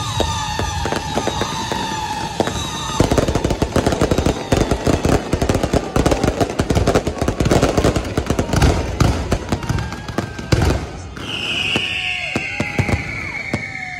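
Aerial fireworks going off in a dense, rapid crackling barrage of sharp cracks and pops. A high whistle, falling slightly in pitch, comes in near the end.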